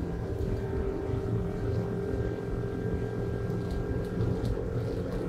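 Honda 100 hp four-stroke outboard running at wide-open throttle, revs climbing slowly as the boat gains speed toward its top speed.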